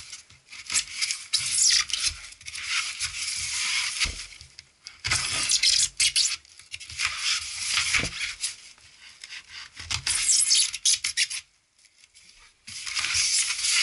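Hands scraping and rubbing on a polystyrene foam box and pulling at the packing tape along its seam, in irregular bursts of hissy scraping with a short pause just before the middle and another near the end.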